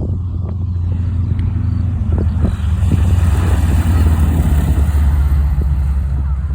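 A WWII warbird's piston engine running with a deep, steady drone. It grows louder toward the middle and eases off slightly near the end.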